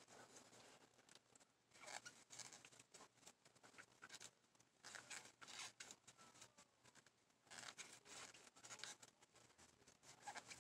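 Faint, irregular rustling and scratching of yarn being worked with a crochet hook, as loops are pulled through stitch after stitch.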